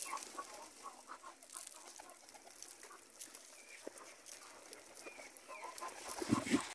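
Chickens clucking in short calls, with pigeons' wings flapping; a louder flutter of wings close by near the end.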